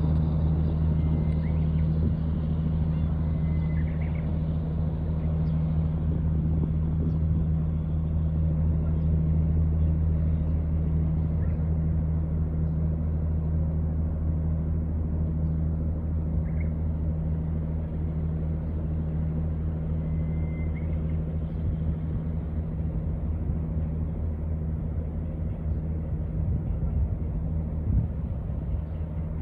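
Set-net fishing boats' engines running with a steady low drone, easing slightly toward the end, as the boats head out to sea. A few faint short high chirps sound over it.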